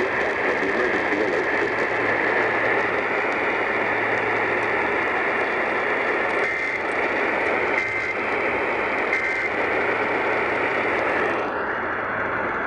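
Emergency Alert System monthly test received over a weak radio signal: heavy static hiss with a low hum. Around the middle come three short data bursts about 1.3 s apart, the EAS end-of-message code. The hiss cuts off about a second before the end.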